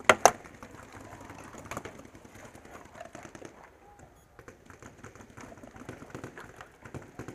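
Two sharp pops from a pump paintball marker, about a fifth of a second apart, very loud and close to the camera. They are followed by faint scattered clicks and rustling.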